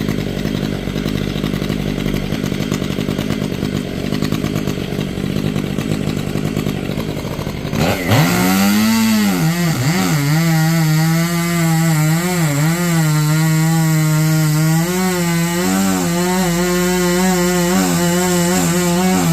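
An engine runs steadily for about eight seconds. Then a chainsaw revs up to full throttle, its pitch dipping and wavering as it bites into the cut, and holds a high, steady note while cutting through a palm trunk.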